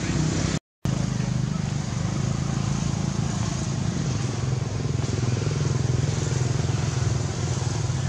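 Steady low engine drone of a motor vehicle running nearby, broken by a brief gap of silence under a second in.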